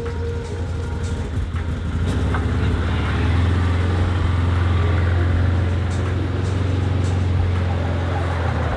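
Can-Am Commander 800R side-by-side's V-twin engine running steadily, getting louder about two seconds in and again about three seconds in as the machine drives off.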